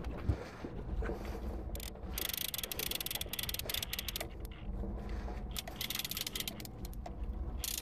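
Fishing reel clicking in rapid ratcheting runs while a hooked sockeye salmon is played toward the boat. The clicking starts about two seconds in and breaks off briefly a couple of times, over a steady low rumble.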